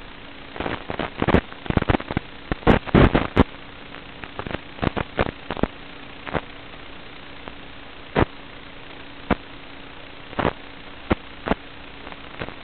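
Analog FPV video-link audio on the DVR: a steady hiss with a low hum, broken by bursts of crackling static. The crackles come thick and fast in the first few seconds, then as scattered single pops, the sign of the radio video signal breaking up.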